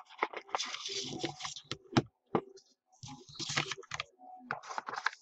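Rigid plastic top-loader card holders clicking and sliding against one another as a stack of sports cards is handled and sorted: a run of quick, irregular clicks and short rustles.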